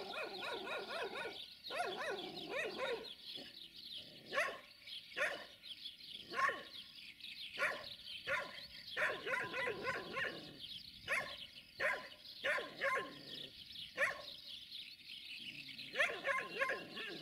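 A dog barking repeatedly, in short irregular barks about once a second, some coming in quick runs.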